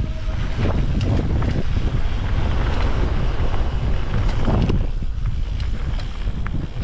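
Wind buffeting the camera's microphone on a mountain bike descent, over a steady rumble of tyres on a dirt trail, with scattered clicks and rattles from the bike.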